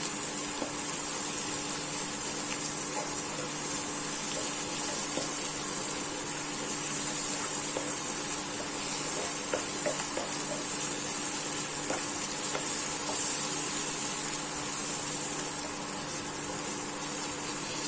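Raw turmeric, ginger and ground spices frying in ghee in a pan, sizzling steadily, with a few light clicks of a spoon stirring; the paste is still cooking and not yet done.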